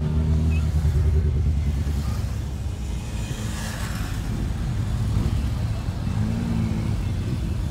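Motorcycle engines as a line of bikes rides past one after another, the nearest loudest in the first two seconds, with another bike's engine coming through about six seconds in.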